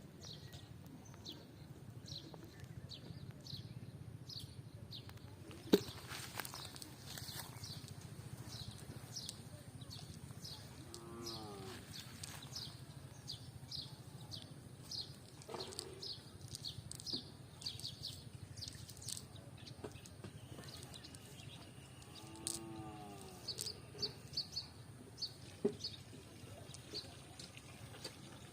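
Cattle mooing: two short calls, one about a third of the way in and one about three quarters in, over constant small bird chirping and a steady low hum.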